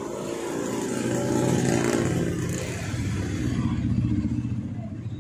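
A vehicle engine running, swelling louder about two seconds in and again about four seconds in.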